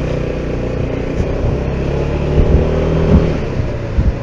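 SYM Maxsym 400 scooter's single-cylinder engine running as it rides off on a test ride, pitch rising slightly then easing, with a few low thumps. No knock from the freshly rebuilt rear reduction gearbox.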